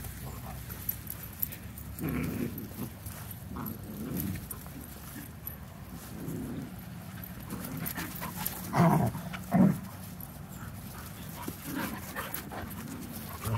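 Puppies wrestling and chasing in play, with several short dog noises; the two loudest come close together about nine seconds in.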